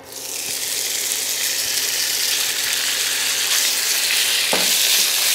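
Diced raw chicken thighs sizzling in hot oil in a nonstick frying pan; the sizzle starts suddenly as the chicken goes in and then holds steady, with one light knock about four and a half seconds in.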